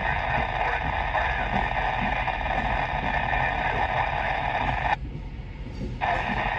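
Railroad scanner radio hissing with open-squelch static, which cuts off about five seconds in, comes back a second later and cuts off again. Under it, a low steady rumble from the loaded coal train's hopper cars rolling slowly past.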